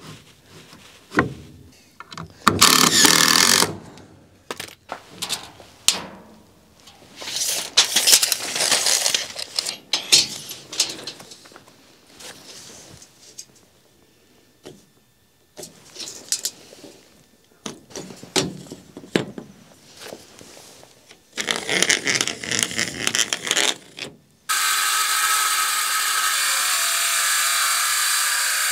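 Short bursts of building work on wood, scraping and handling noises with brief tool runs. Near the end a cordless circular saw runs steadily at full speed with a whine, cutting through a sheet of fiber cement (Hardie board) siding.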